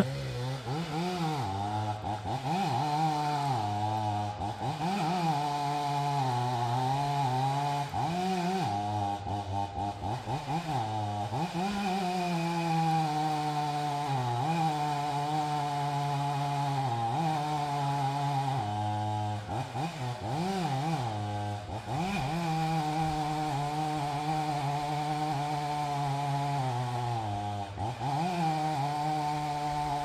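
Two-stroke chainsaw cutting into the base of a dead tree to fell it. The engine runs steadily, its pitch repeatedly sagging and swinging back up every second or two as the chain works in the cut.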